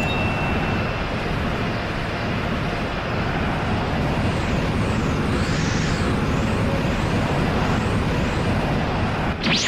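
Anime power-up aura sound effect: a steady rushing roar with faint whooshing sweeps that rise and fall. A sudden blast cuts in just before the end.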